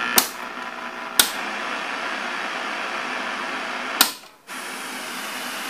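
Sony three-in-one stereo between songs: three sharp switch clicks from the unit, with a steady hiss from its speakers between them and a brief drop-out just after the third click.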